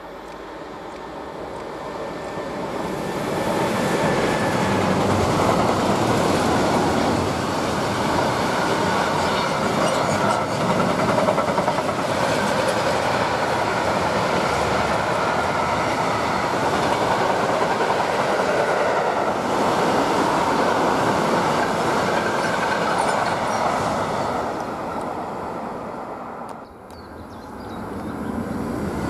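Freight train of open gondola wagons loaded with scrap metal, hauled by an electric locomotive, rolling past: a steady rolling noise of steel wheels on the rails. It builds over the first few seconds as the locomotive draws level, holds while the wagons go by, then fades near the end as the train moves away.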